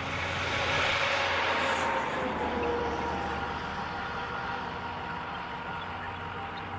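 Railway snowplow train running through deep snow: a steady low engine hum under a rushing of snow, loudest in the first two seconds.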